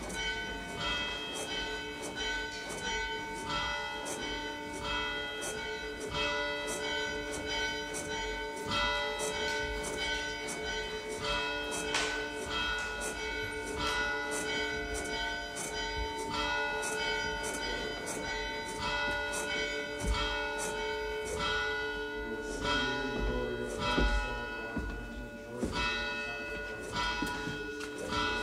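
Several church bells struck in quick, irregular succession, each strike left ringing so that the tones of the different bells overlap in a continuous peal.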